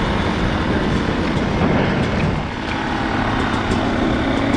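2019 Yamaha YZ250 two-stroke dirt bike engine running as the bike rolls down the street, with steady rumbling noise on the microphone.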